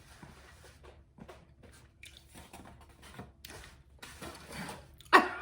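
Soft mouth and eating sounds: scattered small clicks and squishes of food being chewed and handled. Near the end comes one short, louder voiced sound.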